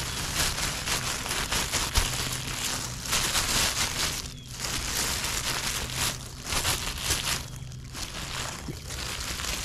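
Plastic bag crinkling and rustling right at the microphone while it is used to pick up dog poop from the grass, in several bouts with short pauses.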